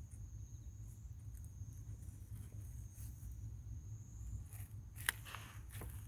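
A steady low rumble and a faint, steady high-pitched whine, with a few soft rustles and one sharp click about five seconds in.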